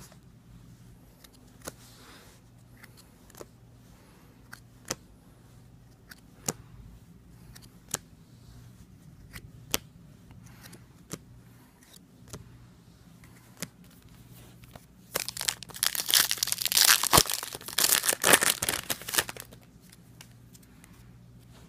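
A series of sharp taps or clicks, about one every second and a half. Then, for about four seconds near the end, loud crinkling and tearing as a trading-card pack wrapper is ripped open.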